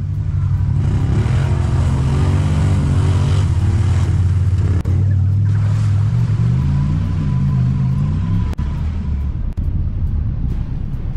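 Side-by-side UTV engine running under way, its pitch rising and falling a few times past the middle as the throttle changes.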